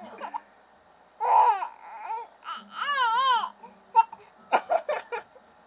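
A baby crying: a short cry a little over a second in, then a longer wail that wavers up and down in pitch, followed by a few short sharp sounds near the end.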